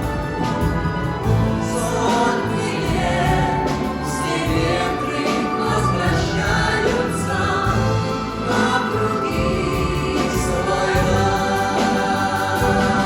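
Choir singing with orchestral accompaniment, full and continuous.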